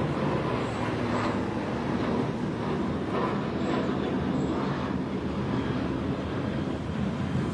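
Steady low rumble of background noise, with no clear rhythm or distinct events.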